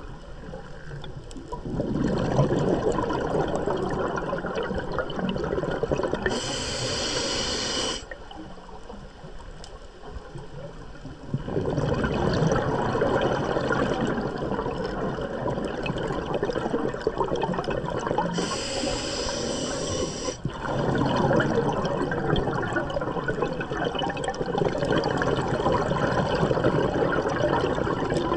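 Scuba diver breathing through a regulator underwater: a hissing inhalation twice, a few seconds in and again about two-thirds through, with long rushes of exhaled bubbles in between and a short quiet pause after the first breath.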